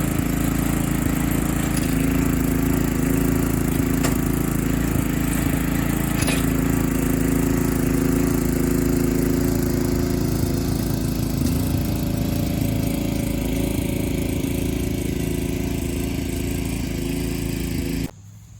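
John Deere D110 lawn tractor engine running steadily under load while the tractor strains to tow a dolly-mounted wood chipper out of a grassy dip. It cuts off suddenly near the end.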